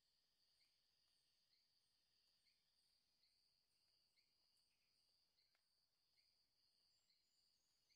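Near silence: only a very faint steady high tone with soft chirps about once a second; no vacuum cleaner is heard.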